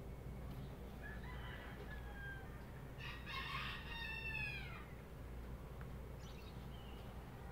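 A rooster crowing: one long crow, a little under two seconds, starting about three seconds in and falling in pitch at the end, with fainter shorter calls before it.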